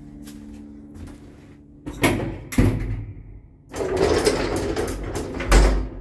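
A passenger lift's automatic sliding doors close and the car sets off downward. There are sharp knocks about two seconds in, then a rattling rush from about four seconds that ends in a heavy thump near the end.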